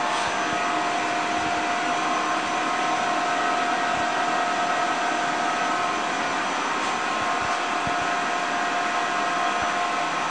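Steady machine whir with a constant high whine running through it.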